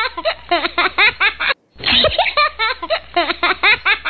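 A small child giggling and laughing in quick high bursts. The same run of laughter is heard twice, with a short break about one and a half seconds in.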